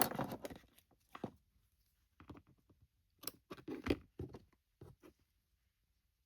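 Irregular rustling and clicking from hands handling ribbon and craft materials at a worktable. The sounds stop about five seconds in.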